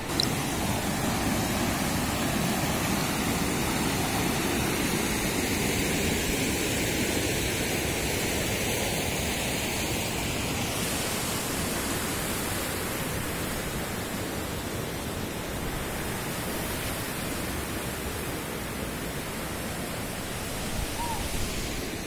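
River water rushing steadily over rock ledges in rapids, a little louder in the first half.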